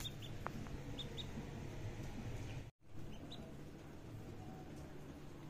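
Duckling peeping: a handful of short, high peeps, some in quick pairs, over a steady low hum. The sound cuts out for an instant just before the third second.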